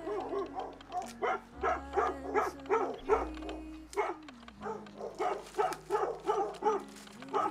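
A boy's voice making a run of short whimpering yelps, about two a second, each rising and falling in pitch, over soft sustained music.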